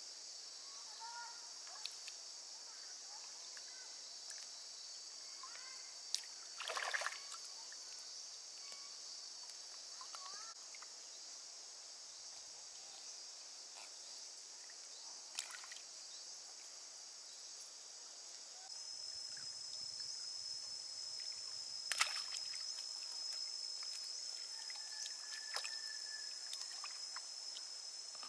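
Water sloshing and dripping as a cast fishing net is hauled in by hand through lake water, with a few short splashes. A steady high-pitched buzz runs behind, sharpening about two-thirds of the way through.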